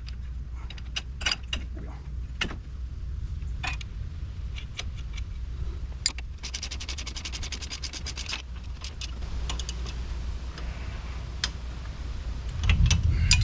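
Hand tools working on ATV front axle hardware: scattered metal clicks and clinks, with a ratchet wrench clicking fast and evenly for about two seconds midway. A steady low hum lies under it, and a louder low rumble comes in near the end.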